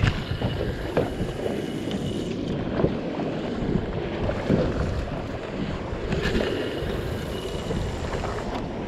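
Wind buffeting the microphone over waves and water slapping against a small boat's hull, a steady rushing noise.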